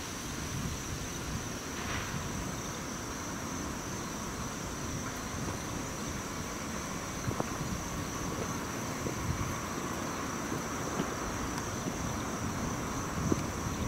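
Steady high-pitched insect chorus in late-summer vegetation, over the faint low rumble of a freight train approaching in the distance.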